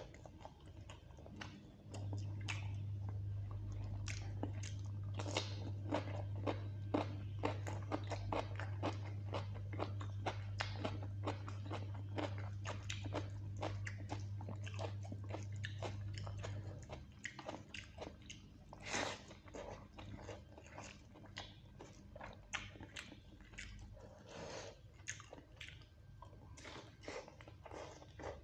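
Close-up chewing and biting sounds of a person eating spicy chicken curry and rice by hand, a dense run of rapid wet mouth clicks. A steady low hum starts about two seconds in and stops a little past halfway.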